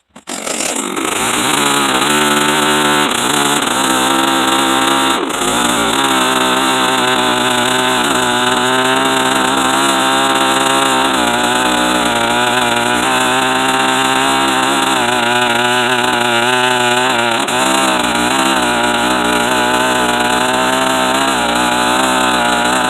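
Small chainsaw with a tiny cutter chain running under load, ripping lengthwise through red oak. The engine note wavers as the cut loads it, with a brief break about five seconds in.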